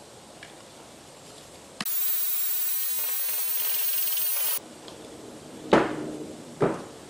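Cordless drill spinning a mixing paddle in a cup of thinned primer: it starts abruptly about two seconds in, runs steadily for nearly three seconds and stops suddenly. Two sharp knocks follow.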